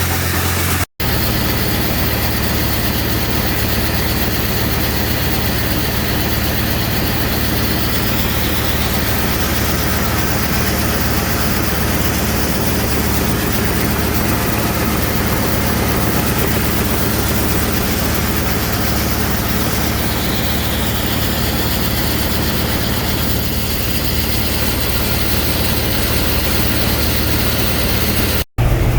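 Heavy farm machinery running steadily, with a constant rushing noise over a low engine drone. It cuts out briefly about a second in and again near the end.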